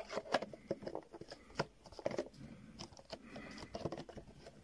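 A clear plastic protector case being closed and handled around a Hot Wheels blister card: scattered light plastic clicks and rustles, irregular and soft.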